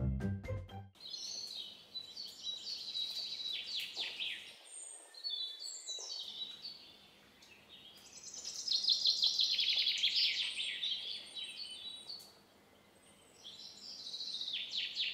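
Small birds chirping in quick trilling bouts, three bouts with short pauses between them. Background music cuts off about a second in.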